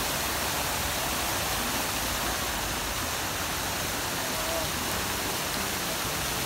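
Steady rush of water splashing in a large public fountain, an even hiss with no breaks.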